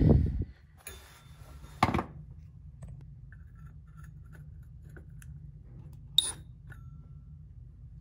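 Small knocks and clicks of a drill and hole saw being handled and set against a plastic collar, over a steady low hum; a sharp click about two seconds in and another about six seconds in.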